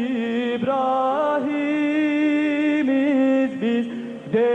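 A singer performs a Turkish Islamic hymn of martyrdom (şehadet ilahisi), holding long drawn-out notes with ornamented bends between them, over a faint low held tone.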